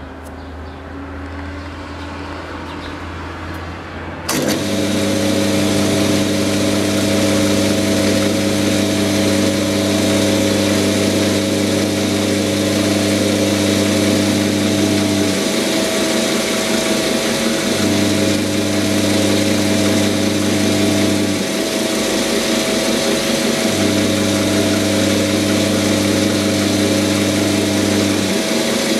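Quantum 210 x 400 lathe running with a loud, steady machine whir and hum. About four seconds in it abruptly gets much louder. A deeper hum in it then drops out for a few seconds and returns, twice.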